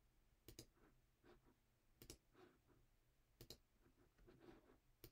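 Faint computer mouse clicks, each a quick press-and-release pair, about every one and a half seconds, over near-silent room tone.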